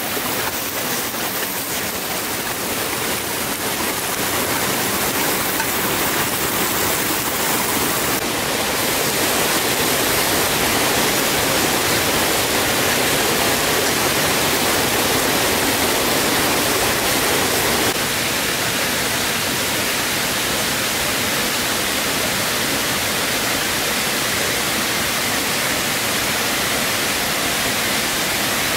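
Stream water rushing over rocks: a steady, even rush whose tone shifts abruptly twice, about 8 and 18 seconds in.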